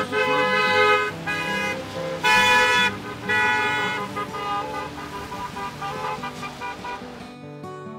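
Car horn honking in a series of long blasts: four strong ones in the first four seconds, then fainter, shorter honks. Near the end the street sound cuts off to acoustic guitar music.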